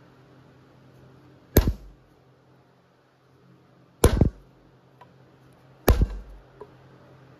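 Three sharp hammer strikes on metal, about two seconds apart, each with a short ringing tail: driving the new rear axle seal into place on an ATV axle.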